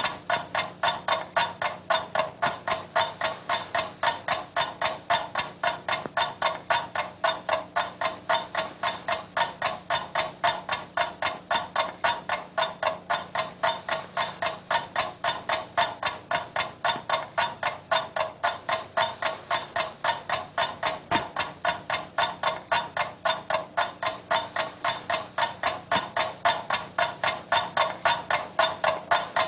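Loud, steady ticking of a clock at about three ticks a second, the beat never changing.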